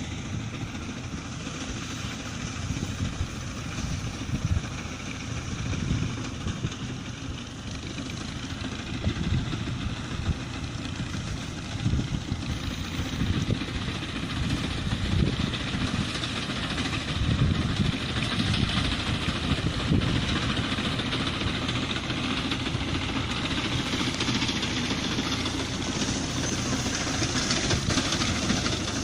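Tractor engine running steadily while working a field, growing somewhat louder in the second half.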